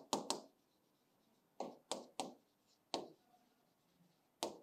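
Marker pen writing on a whiteboard: about seven short, sharp taps and strokes at irregular intervals as the letters are formed.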